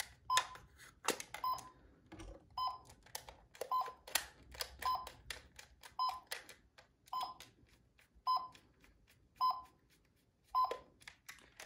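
Robotic toy dog beeping in a steady repeating pattern, a short electronic beep about once a second, on first power-up with fresh batteries. Plastic clicks and knocks in between from the toy being handled.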